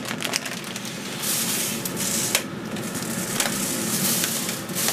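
Coarse salt poured from a tub over shrimp on a foil-lined grill plate: a gritty patter of grains hitting foil with scattered ticks, louder from about a second in.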